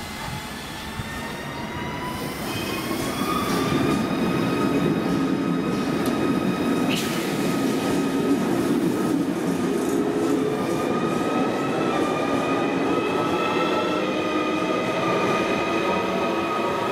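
ZSSK class 671 double-deck electric train pulling out: the traction motors and inverters whine in several tones that rise in pitch as it speeds up over the first few seconds, then hold, over the steady rumble of the coaches rolling past.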